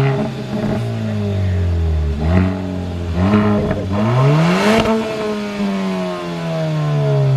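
2021 Kia Forte GT's 1.6-litre turbocharged four-cylinder, resonator deleted, blipped several times while stationary, each rev rising and falling back. The last and highest rev comes about four and a half seconds in and sinks slowly back toward idle. With the resonator gone the exhaust is only a little louder than stock.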